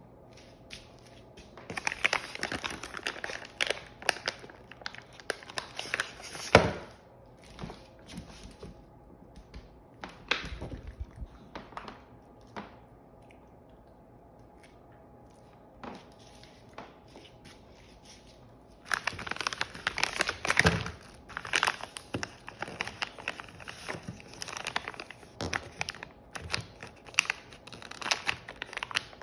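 Plastic packaging crinkling and rustling as it is handled, in two long spells, about 2 to 7 seconds in and again from about 19 seconds on, with scattered clicks and short rustles between.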